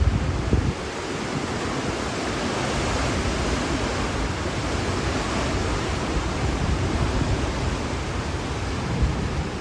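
Hurricane-force wind rushing steadily, swelling a little after the first couple of seconds, with gusts buffeting the microphone with low thumps near the start and again near the end.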